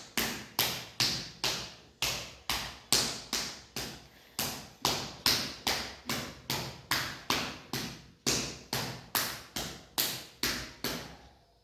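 A hand tapping or slapping rhythmically on a person's body, about two to three sharp strikes a second, steady throughout and stopping just before the end.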